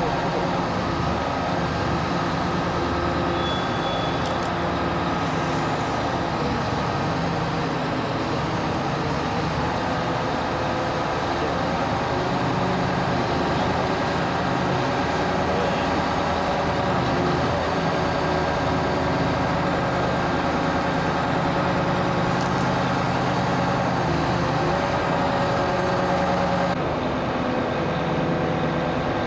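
Heavy diesel engine running steadily: the power pack of a self-propelled modular transporter moving a bridge span, a constant engine drone. The sound shifts slightly near the end.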